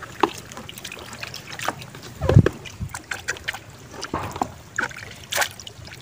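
Water splashing and dribbling as a hand stirs and sifts gourami fingerlings in a perforated plastic sorting basket sitting in a tub of water, in irregular small splashes, with one heavier thump a little over two seconds in.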